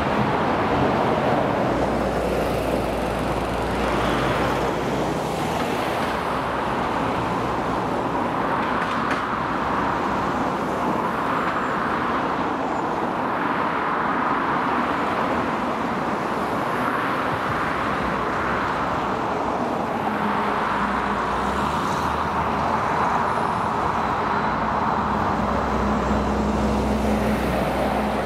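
Road traffic going past: cars and lorries drive by one after another, the tyre and engine noise swelling and fading with each. Near the end a lorry passes close with a low engine drone.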